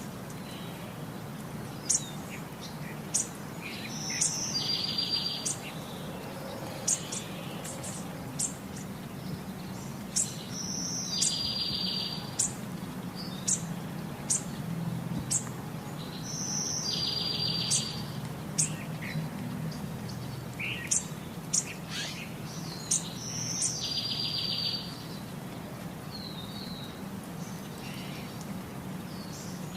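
Birds chirping, with short high chirps and a buzzy trill of about a second that recurs roughly every six seconds, over a low steady hum.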